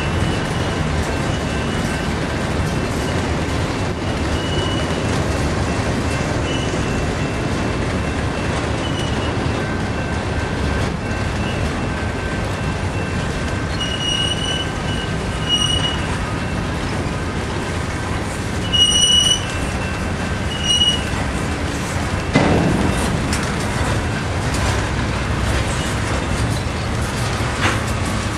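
Freight train of covered hopper and tank cars rolling past: a steady rumble of steel wheels on rail, broken by several short, high-pitched wheel squeals, the loudest about two-thirds of the way through, and one sharp clank a little after that.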